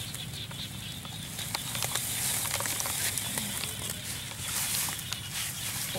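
White woven plastic sack rustling and crinkling in scattered short crackles as it is handled and pulled over a wire fan-guard trap, over a steady high outdoor hiss.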